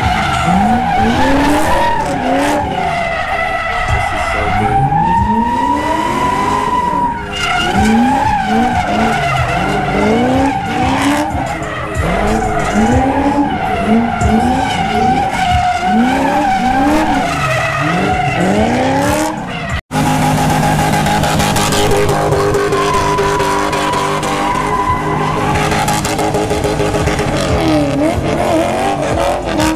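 White fourth-generation Pontiac Firebird drifting. The engine revs climb and drop over and over while the rear tyres squeal in a long, wavering screech. After a cut about two-thirds of the way through, the engine holds a steadier high note under the tyre squeal.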